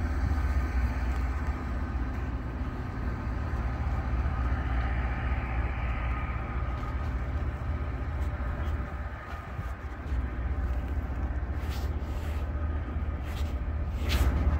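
Distant LORAM rail grinder train approaching: a steady low rumble with a faint whine of several held tones above it, getting louder near the end.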